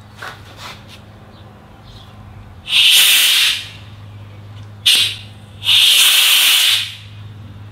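Argon cylinder valve cracked open in short bursts, gas hissing out of the open outlet fitting to purge any debris before the regulator goes on: a hiss of about a second, a brief blip, then another hiss of about a second.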